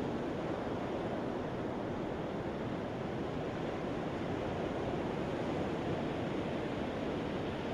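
Steady wash of ocean surf, with no single wave or other event standing out.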